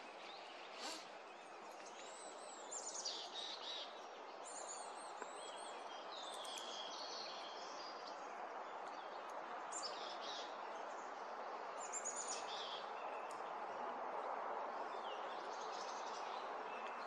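Wild birds chirping and calling in short, scattered phrases over a steady background hiss.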